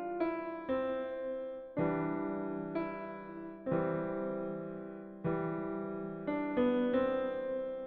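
Slow piano music: chords struck about once a second, each left to fade before the next.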